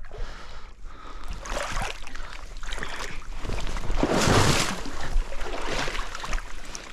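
Stream water rushing and splashing, with wind rumbling on the microphone; the noise swells and is loudest about four seconds in.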